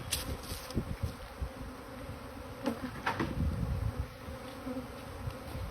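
A swarm of honeybees buzzing steadily around a hive box they have just been shaken into, with a few sharp knocks and low rumbles from handling.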